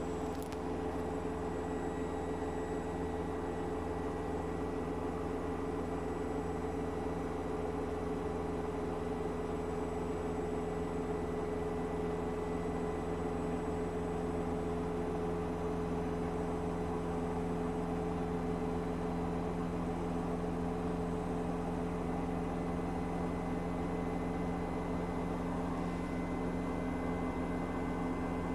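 A household washing appliance running with a steady motor hum of several fixed tones over a low rushing noise, unchanging throughout.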